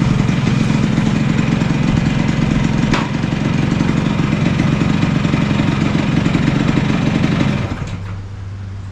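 1974 Yamaha Enduro's two-stroke single-cylinder engine running steadily with a rapid pulse, then dropping away near the end.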